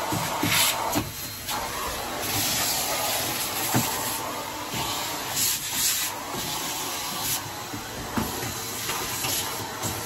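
Henry canister vacuum running, its nozzle rubbing and scraping over van carpet. The suction hiss swells and drops as the nozzle moves, with a few short knocks.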